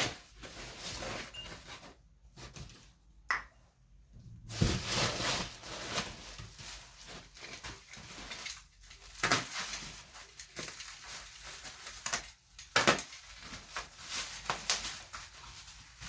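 Drinking glasses and their packaging being handled during an unboxing: rustling wrap with several sharp clinks and knocks as the glasses are set down and moved.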